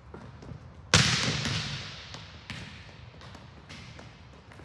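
A volleyball struck hard by hand about a second in, a sharp slap that echoes through the large warehouse gym, followed by a couple of softer thuds.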